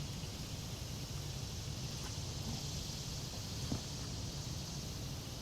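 Steady outdoor background noise: a low, even hum under a high, steady hiss, with one faint click a little past halfway.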